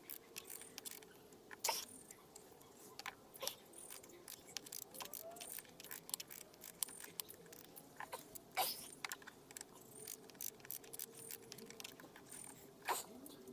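Scattered metallic clicks and clinks at uneven intervals, a few louder than the rest: a quarter-inch socket wrench with a taped-on T25 bit being worked on the idle air control valve's mounting bolt in a tight space.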